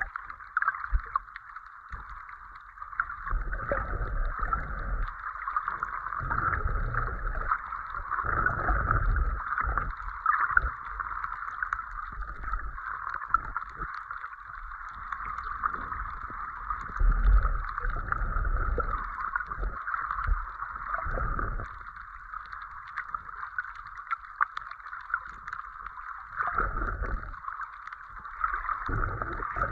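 Underwater sound picked up by a snorkeler's submerged camera: a steady hiss, with muffled low rushes of moving water that come and go.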